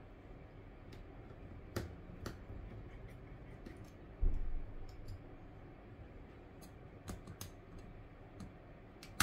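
Small hand tools clicking and tapping on the opened phone's internals: a precision screwdriver at the screws, then tweezers at a flex cable. The clicks come irregularly, with a dull low knock about four seconds in and a quick cluster of clicks near the end.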